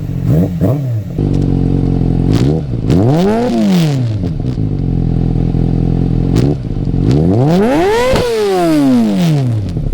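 Kawasaki ZX-6R's inline-four idling through an MJS header with the catalytic converter deleted, blipped quickly at the start, then revved up and back down twice, the second rev higher, about three and a half and eight seconds in. It is running rich on a zeroed Power Commander map.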